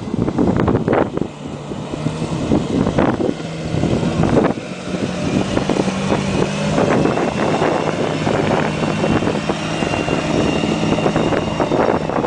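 Stock Jeep Cherokee XJ's engine running under load as it climbs a rock slab, its pitch stepping up a little about midway and then settling. Gusty wind buffets the microphone throughout.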